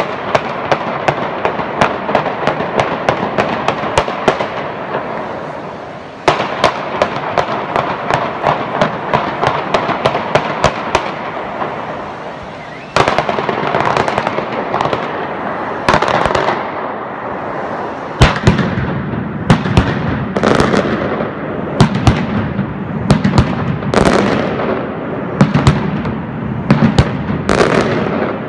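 Valencian mascletà: a dense, continuous rattle of firecrackers with louder single bangs on top. It surges again about six and about thirteen seconds in, and from about eighteen seconds in heavier, deeper explosions stand out every second or so.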